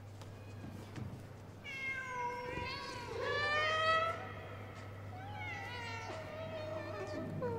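Caged cats meowing, several drawn-out calls that slide up and down in pitch and overlap, loudest about three seconds in, over a steady low hum.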